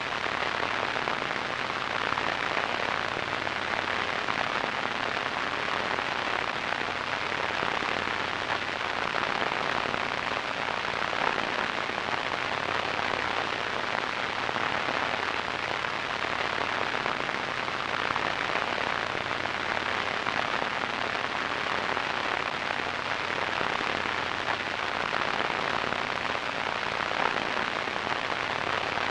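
Radio static: a steady, even hiss that does not change.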